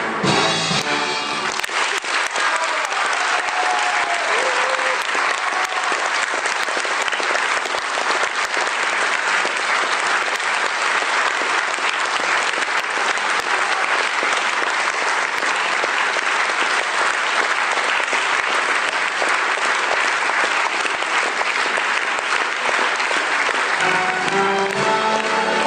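A choral music number ends in the first couple of seconds and a theatre audience applauds, a dense, even clapping that lasts over twenty seconds. Music starts again near the end.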